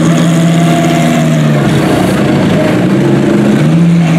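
Audi R8 LMS GT3 race car's V10 engine idling through its open race exhaust, with the idle speed stepping up and down a little every second or two.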